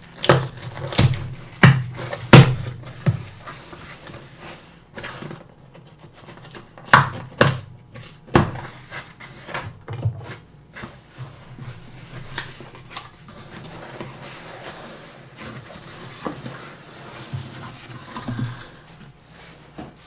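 Cardboard shipping box being opened by hand: sharp cracks and scrapes as the taped flaps are pulled apart, then softer rustling and handling of paper-towel wrapping.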